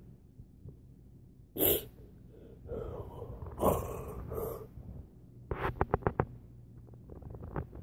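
A person's sharp huff of breath, then a longer breathy exhale. After that comes a quick run of sharp clicks or rattles, about five and a half seconds in.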